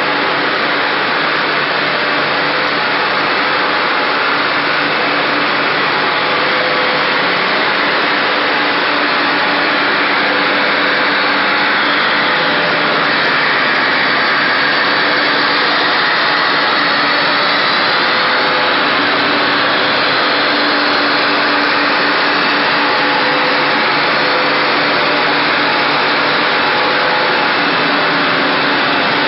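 Polystyrene foam sheet extrusion line running: a steady, loud machine noise with a few constant low hum tones underneath, unchanging throughout.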